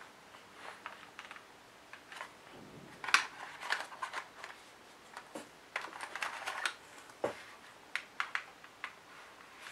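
Light plastic clicks and taps as transparent plastic fountain pens are handled and lifted from and set back into a plastic tray. The clicks are scattered and irregular, with the sharpest one about three seconds in and a cluster around six seconds.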